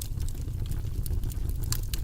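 Wood fire burning in a fireplace: burning logs crackling with many sharp irregular pops over a steady low rumble of the flames.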